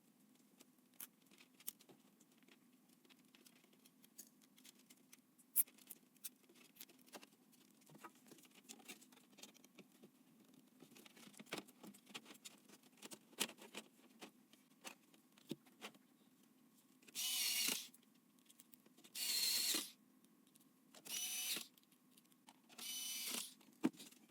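Light clicks and taps of PC components and case parts being handled during assembly, followed near the end by four short, loud rasping bursts about two seconds apart.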